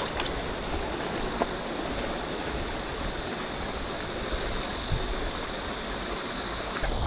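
Flowing stream water rushing steadily, with a high even hiss over it that stops abruptly near the end.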